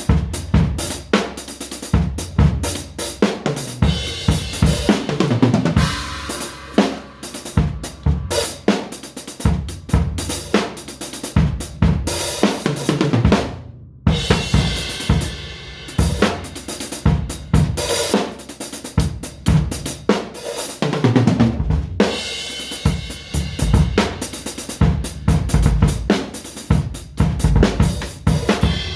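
Drum kit played in a loose, improvised way: kick, snare, hi-hat and cymbals hit densely, with a short break about halfway through.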